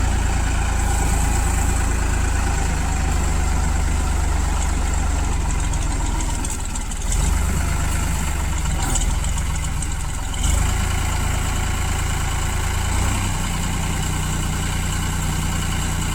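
New Holland 3630 tractor's diesel engine running steadily, powering the backhoe loader attachment, with brief rises in level about seven and ten seconds in.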